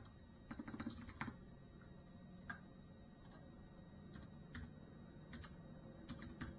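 Faint, irregular clicks and taps, a short cluster about a second in and another near the end, over a low steady room hum.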